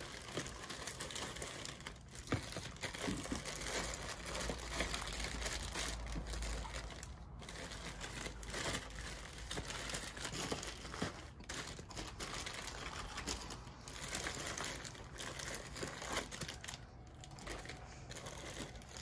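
Clear plastic zip-top bags of action figures crinkling and rustling as hands rummage through them in a plastic tote. The sound runs on with brief pauses, about seven seconds in and near the end.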